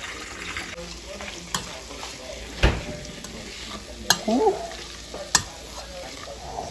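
Hot oil sizzling as food fries in a stainless steel pot, with metal tongs clacking against the pot rim four times as the pieces are turned; the loudest clack comes a little past halfway.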